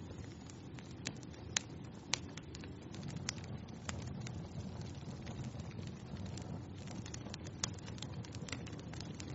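Wood fire burning in a fireplace: a steady low rush of flames with frequent sharp crackles and pops, a few louder snaps about one and a half, two and near eight seconds in.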